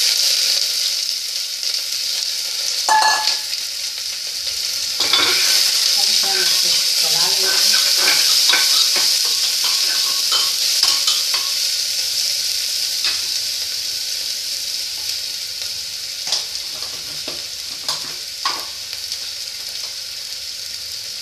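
Chopped onions sizzling in hot oil in an open pressure cooker, stirred with a spatula that scrapes and clicks against the pot. The sizzle grows louder about five seconds in, then slowly dies down.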